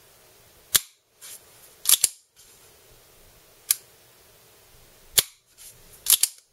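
Sharp metallic clicks from the trigger and hammer of a custom Tokyo Marui Hi-Capa gas blowback airsoft pistol as the trigger is pulled and let reset, a single click every one to two seconds. Near the end a quick run of clicks comes as the slide is worked by hand.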